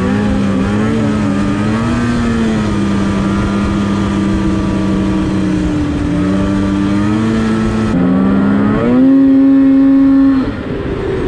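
Polaris Switchback Assault two-stroke snowmobile engine running at trail cruising speed, its pitch holding steady with small rises and dips. Near the end it revs higher and louder for about a second and a half, then falls away abruptly.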